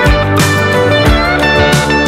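Background music: a guitar tune with sliding notes over a steady beat of about two thumps a second.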